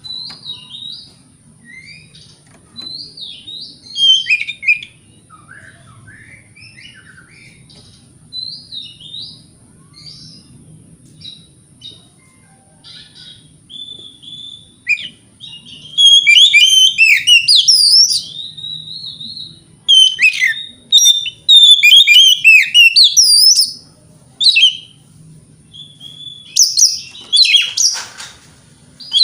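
Oriental magpie-robin in full song: varied, rich whistled phrases, softer and scattered at first, then loud, fast, dense bursts of song from about halfway through. A brief rushing noise comes near the end.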